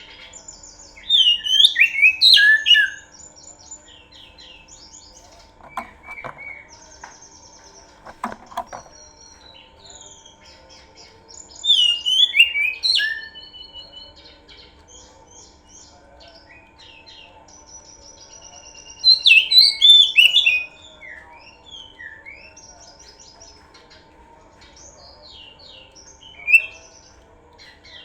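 Oriental magpie-robin (kacer) singing: three loud bursts of quick, varied whistles and chattering notes, each a couple of seconds long, with softer chirps between them and a short burst near the end.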